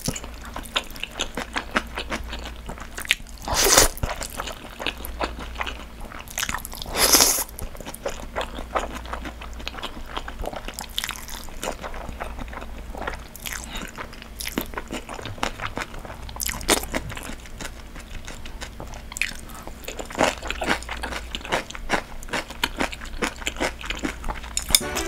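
Close-miked eating: thin somyeon wheat noodles in spicy sauce slurped from chopsticks and chewed, with many small wet mouth clicks. Two longer slurps stand out, about four and seven seconds in.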